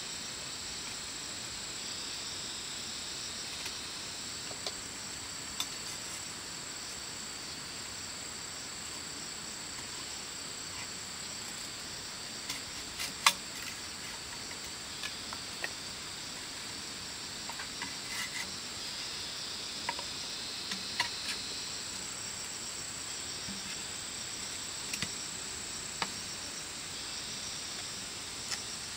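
Steady high-pitched chorus of forest insects, with scattered short clicks and knocks throughout and a sharper knock about halfway through.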